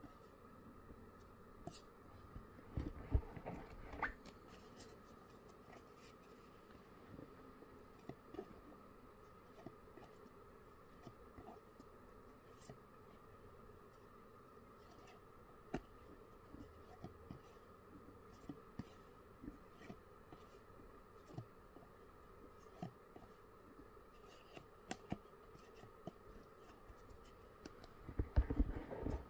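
Holographic trading cards being flipped and slid against one another in the hands, a faint scraping with soft ticks. There is a louder flurry of handling about three seconds in and again near the end.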